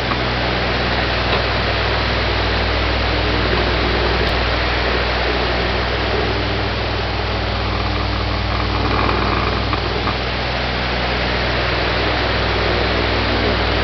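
Electric pedestal fan running: a steady whoosh of moving air with a low, even motor hum.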